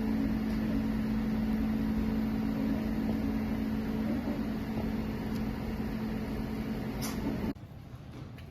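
CreatBot PEEK 300 3D printer running during a print: a steady hum of its motors and fans with a held mid-low tone. About seven and a half seconds in the sound drops suddenly to a much quieter background.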